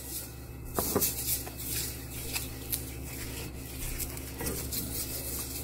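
An onion on a fork rubbed around a hot, oiled wok: an irregular crackling sizzle with scraping as it moves over the metal.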